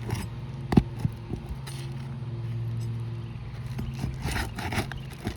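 Scraping and sharp knocks of a roof snake worked under asphalt shingles to get at the nails, with one loud knock about a second in. A steady low hum runs underneath.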